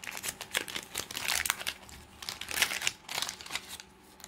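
Wax-paper wrapper of a 1987 Topps football card pack crinkling as it is torn open, in a string of irregular rustles that die down near the end.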